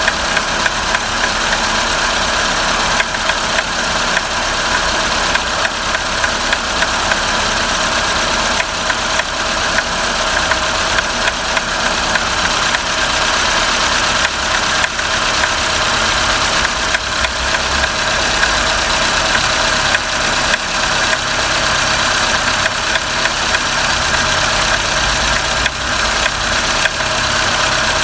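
Renault Sandero Stepway engine idling after a cold start, with frequent light clicks over its steady run: the ticking that appears only on a cold engine and fades after a few minutes, its cause not yet diagnosed.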